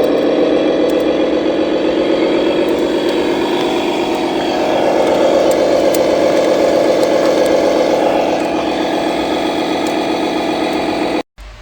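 Toy remote-control dump truck running: a steady, loud mechanical engine-like drone that rises a little in pitch at the start, then holds, and cuts off suddenly near the end.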